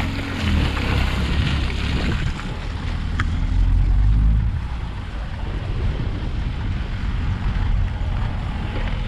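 Chevrolet Prisma 1.4's four-cylinder engine running as the car drives along a muddy dirt track, its note shifting in pitch during the first few seconds, with tyre noise on the wet ground. Wind buffets the outside-mounted camera's microphone.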